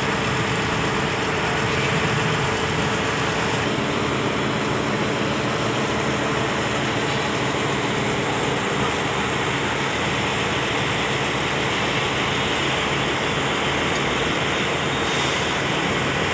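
Heavy construction machinery running steadily: a loud, even engine drone with a constant hum and no letting up.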